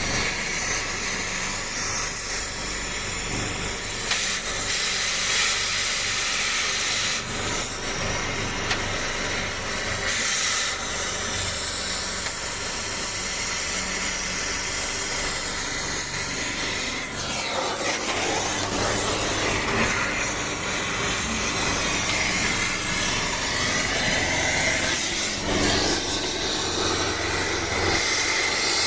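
Backhoe running, its diesel engine at a steady speed under a broad hiss, with brief changes in engine pitch about two-thirds of the way through and again near the end.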